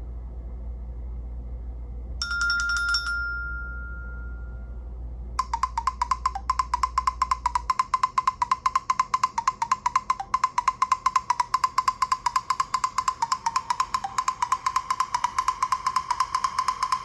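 Nokia Lumia 1520 ringtones on Windows Phone 8: a short bell-like chime about two seconds in that rings out for a few seconds. From about five seconds in comes a ringtone built on a fast, even run of wood-block-like knocks, mostly on one pitch.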